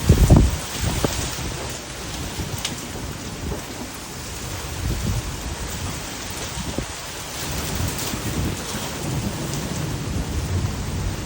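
Heavy wind-driven rain falling with a steady hiss, over low rumbles that swell and fade. The loudest rumble comes right at the start, and others follow around halfway and near the end.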